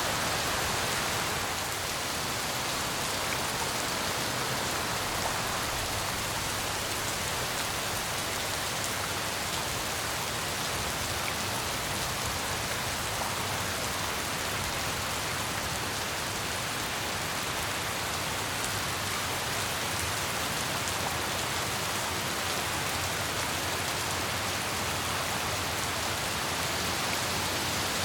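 Steady heavy rain falling and pattering on surfaces, an even hiss with scattered drop ticks and no change in intensity.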